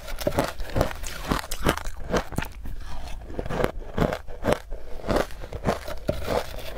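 Close-miked crunching and chewing of matcha-powdered shaved ice: a quick run of crisp crunches, several a second, with a metal spoon scraping through the ice in the bowl.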